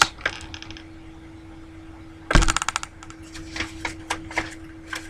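Desk handling noise: a short clatter of rapid clicks about two seconds in, then a few lighter scattered clicks, over a faint steady hum.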